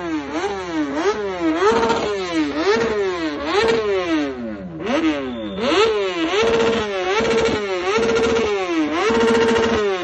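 Kawasaki sportbike's inline-four engine revved hard over and over, about once a second. Each blip climbs fast to the rev limiter, often holds there bouncing for a moment, then falls back.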